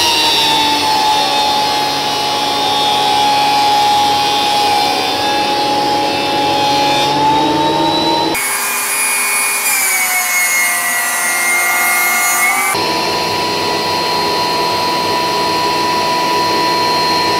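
Jet JWP-13BT benchtop thickness planer running as a board is fed through it, taking passes to bring the board down to thickness. The motor whine sags slightly under the cut and rises again about eight seconds in. The sound shifts abruptly twice, about eight and thirteen seconds in.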